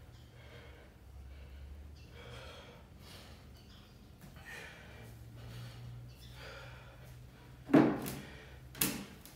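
Heavy breathing after a set of push-ups, a hissing breath about once a second. Near the end come two sharp thumps about a second apart, the loudest sounds, as the body comes down onto a tiled floor to get into push-up position.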